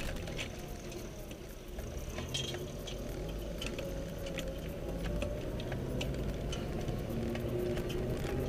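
Car engine running steadily, heard from inside the cabin while driving slowly over a rough gravel and sand track, with scattered clicks and rattles from the car jolting over the ruts.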